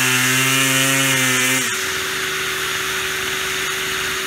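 Gas string trimmer engine running at high revs, then dropping abruptly to a lower idle about a second and a half in, over the steady whine of a wet/dry shop vacuum.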